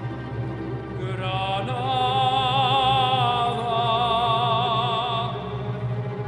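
Operatic tenor holding one long note with wide vibrato for about four seconds, over a small string ensemble of violins, cello and double bass.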